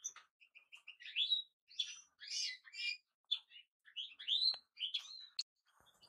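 European goldfinch singing: a run of quick twittering notes and short chirps, some sliding up in pitch.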